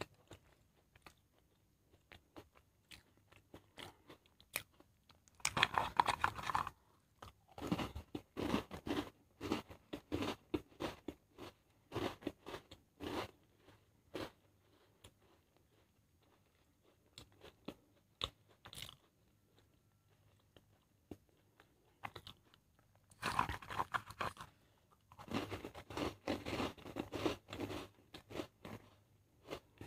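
Crisp biscuits being bitten and chewed, eaten straight off a plate by mouth. There are two dense bursts of loud crunching, about six seconds in and again around twenty-three seconds, each followed by several seconds of rapid crunchy chewing, with a quieter stretch in between.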